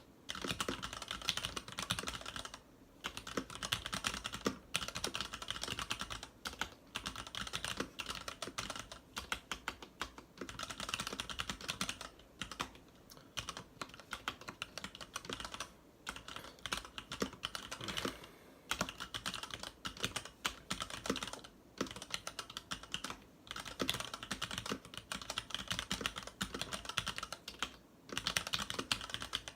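Continuous typing on a Varmilo VA87M mechanical keyboard with Cherry MX Red linear switches and PBT keycaps: fast runs of keystrokes broken by short pauses every few seconds.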